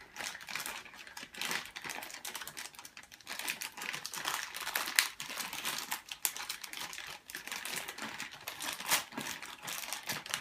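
Plastic crinkling and rustling as things are handled, with many small irregular clicks and taps.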